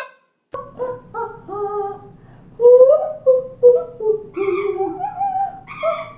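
A woman and a yellow-naped amazon parrot singing a tune together, held notes stepping up and down in pitch, the two voices trading phrases.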